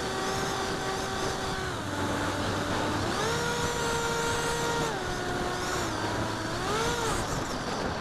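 Electric motor and propeller of a small foam flying wing whining in flight, the pitch shifting with the throttle: steady, dropping just before two seconds in, climbing again around three seconds, dropping near five seconds and briefly rising and falling near seven seconds, over a steady rushing noise.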